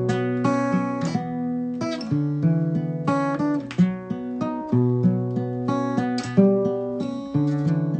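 Small-bodied acoustic guitar played solo: picked chords and bass notes ringing out in a steady, repeating pattern.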